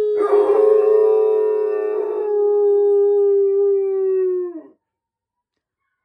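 Utonagan dog howling: one long howl held at a nearly steady pitch that sags slowly, rougher for its first two seconds, then dropping away and stopping about three-quarters of the way through.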